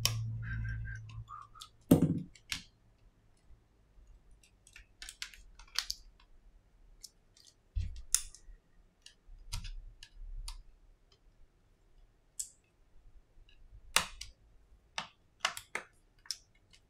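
Small scattered clicks and taps of an iPhone 7 and its small repair tools being handled on a silicone work mat, with a sharper click about two seconds in and a quick run of clicks near the end. A brief low hum sounds during the first two seconds.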